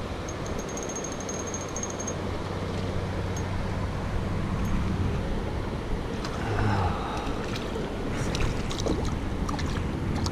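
Steady rushing noise of wind and moving water. Scattered clicks and splashes come in over the second half.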